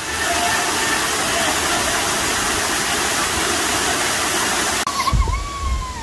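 Waterfall pouring into a rocky pool: a loud, steady rush of falling water. Near the end the sound cuts to a quieter rush of water with uneven low rumbling buffets on the microphone and a brief falling tone.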